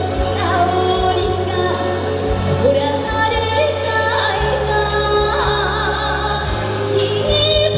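A woman singing a Korean trot song live over a band accompaniment with steady bass and a regular beat. She uses vibrato on the held notes about two-thirds of the way in.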